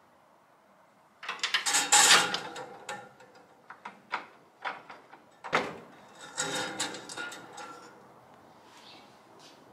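Clattering and rattling of hard objects being handled, in two bursts of many quick knocks and clicks with a few single knocks between.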